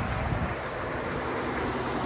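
Ford F-150 pickup driving slowly up at close range, engine and tyres on asphalt, with wind buffeting the microphone.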